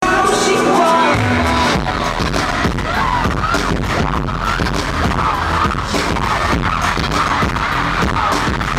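Loud live pop music played through a concert sound system, recorded from the audience. It opens on a held note, and a heavy, steady beat comes in about a second in.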